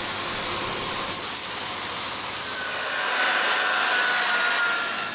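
Compressed-air spray gun hissing as it sprays. About a second in this gives way to an electric rotary polisher running with a foam pad on a fiberglass plug, with a high motor whine in the second half.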